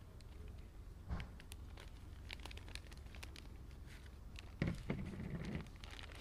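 Plastic zipper storage bag rustling and crinkling as it is handled and sealed by hand, with faint scattered clicks, a soft thump about a second in and louder rustling near the end.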